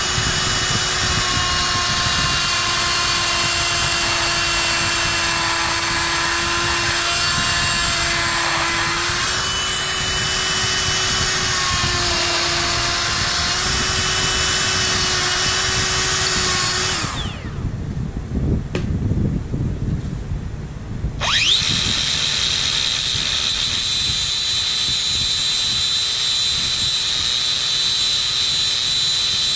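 Die grinder running with a steady whine as its burr grinds the inside of a steel pipe end, the pitch shifting slightly as it bites. About seventeen seconds in it winds down. After a few seconds' pause an angle grinder with a flap disc spins up and grinds the end of the pipe.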